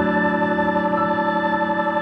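Background music: a sustained, organ-like keyboard chord.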